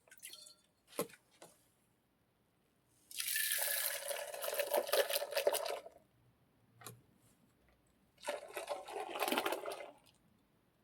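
Liquid poured into a vessel, foley for milk being poured into a milk pot. Two pours, a longer one about three seconds in and a shorter one near the end, with a few faint clicks at the start.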